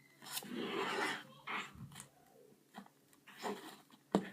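Fluffy slime being stirred and worked on a plate, a few scraping, squishing strokes: one longer stroke near the start, then shorter ones.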